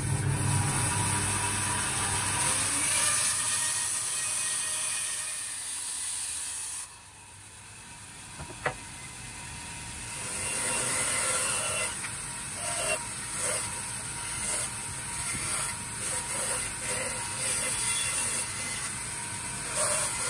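Band saw running and cutting through a thick block of wood: a steady hiss. It drops off abruptly about seven seconds in and builds up again, with one sharp click shortly after.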